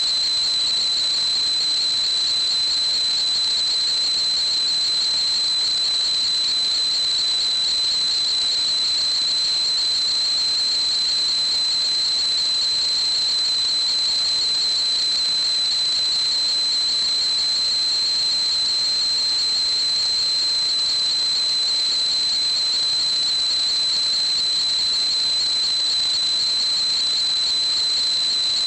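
A steady, unchanging high-pitched whistling tone over an even hiss.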